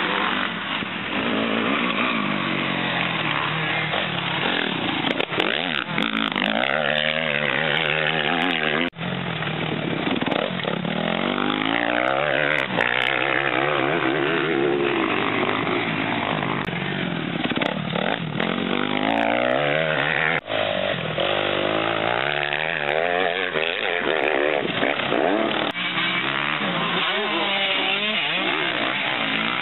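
Several motocross dirt-bike engines revving up and down as the bikes ride the track, their pitches rising, falling and overlapping. The sound drops out for a moment about nine seconds in and again about twenty seconds in.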